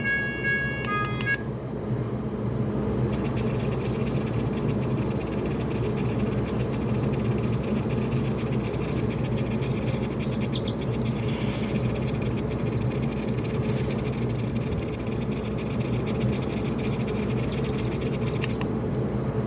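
Bird-chirp ringtone played through a Wellcom W890 mobile phone's speaker: fast, high twittering that starts about 3 s in and cuts off shortly before the end. The last notes of a melodic ringtone end just before it, and a steady low hum runs underneath.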